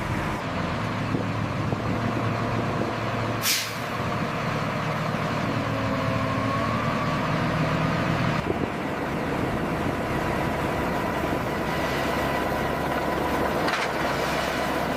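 Heavy lifting machinery running steadily, with a short sharp hiss about three and a half seconds in. The engine sound shifts about eight and a half seconds in, and there is a smaller burst near the end.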